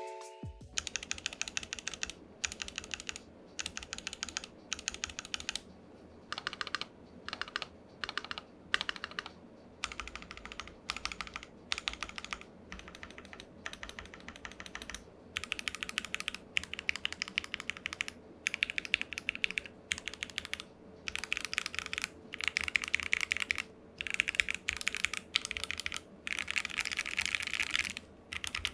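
Typing on a Keychron Q2 aluminium 65% mechanical keyboard with Gateron Box Ink switches in a steel plate with case foam: rapid keystroke clicks in bursts of a second or two, with short pauses between them.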